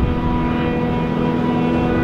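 Self-propelled forage harvester chopping maize alongside a tractor hauling a loaded trailer through deep mud: a loud, steady engine rumble under load with a constant whine held throughout.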